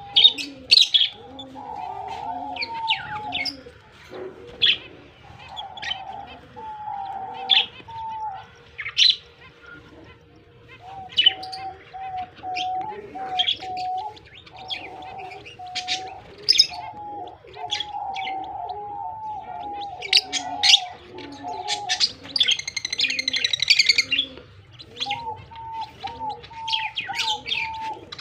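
Lovebirds chirping: sharp, high calls at irregular intervals, with a burst of rapid chatter about 23 seconds in. A low call repeating about twice a second runs underneath.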